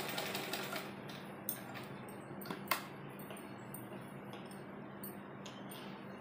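Sewing machine stitching along a folded cotton strip, a steady mechanical run with a low hum, and a few sharp clicks about one and a half and three seconds in.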